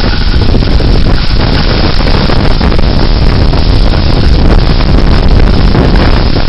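Damaging severe-thunderstorm wind, loud and continuous, buffeting the microphone with a heavy low rumble.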